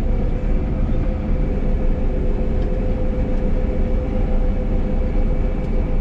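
John Deere 9760 combine running steadily while harvesting barley, heard from inside the cab: an even machine drone with a steady hum.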